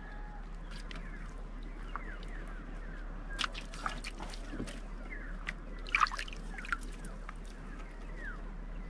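Quiet water sounds, trickling and dripping, with a few small splashes about three and a half and six seconds in. Short falling bird chirps in the background.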